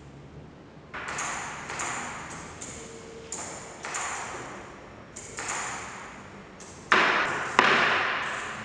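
Electro-mechanical baboon automaton at work: a run of about eight sharp clacks, each ringing on briefly in the large empty room, the last two, near the end, loudest.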